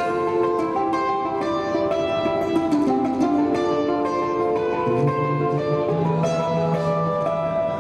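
Balalaika duo playing: a small balalaika carries a melody in fast repeated strokes over plucked notes from a contrabass balalaika. The bass line drops to a lower note about five seconds in.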